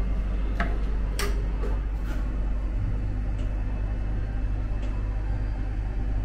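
Steady low hum of a cup-type drink vending machine, with a few light clicks and taps in the first two seconds as the filled paper cup is taken out through its dispensing door.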